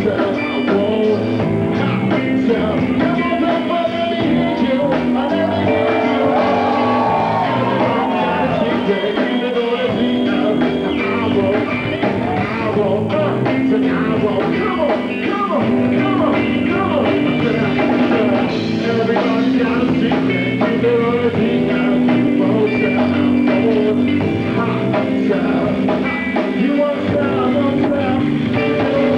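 Live rock band playing: a man singing into a microphone over electric guitar and drums.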